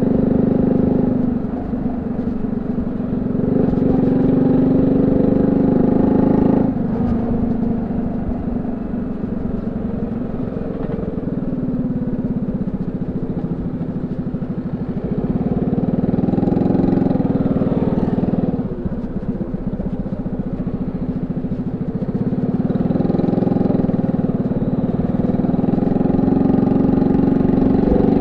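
Honda C70 motorcycle's small single-cylinder four-stroke engine running through a banana-shaped muffler. The engine note swells and eases several times, dropping off sharply twice.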